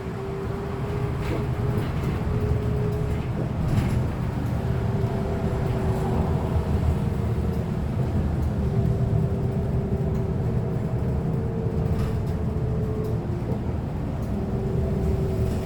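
Inside a moving Chinese-made city bus: a steady low rumble from the drivetrain and road, with a thin whine that climbs a little near the start and then holds, and a few faint rattles.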